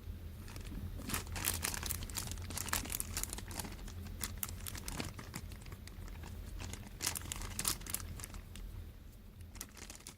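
Homemade slime being squished and stretched by hand, giving irregular wet crackles and clicks, thickest in bursts about a second in and again near seven seconds. A steady low hum from a room heater runs underneath.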